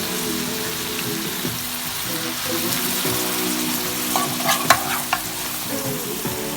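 Food sizzling in hot oil in a pan as it is stirred, with a few sharp clicks of the utensil against the pan about four to five seconds in.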